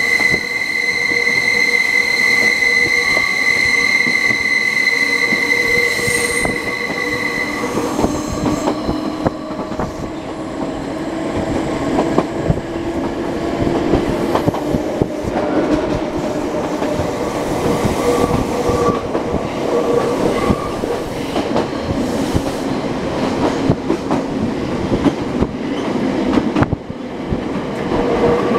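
Nankai Koya Line electric train running on its curving mountain line: a steady high wheel squeal from the wheels grinding through a curve stops about seven seconds in. After it, the wheels rumble and click over the rail joints, with a fainter squeal coming back for a few seconds midway.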